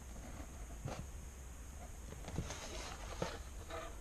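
Faint scratching of a pen drawing lines along a plastic ruler on paper, with a few soft taps as the ruler and sheets are handled.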